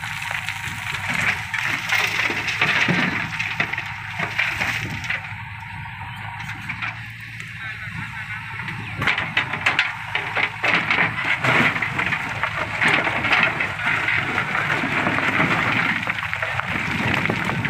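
JCB 3DX backhoe loader's diesel engine running steadily while its backhoe bucket digs into loose broken rock, stones clattering and cracking against the steel bucket, the clatter thickest in the second half.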